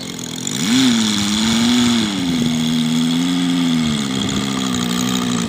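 Moki 150 cc five-cylinder radial engine of a large RC model TBM Avenger running at low throttle as the plane taxis. Its pitch rises briefly about a second in, then holds steady with a slight waver. The sound drops away abruptly at the end.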